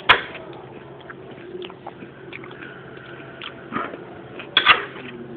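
Eating sounds: chewing with scattered sharp clicks, a loud one right at the start and a double click near the end.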